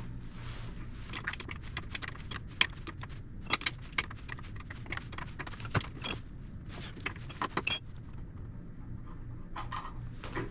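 Metal hand tools clinking and rattling in irregular sharp clicks, with a cluster of louder clinks a few seconds in and again near the end, over a steady low hum.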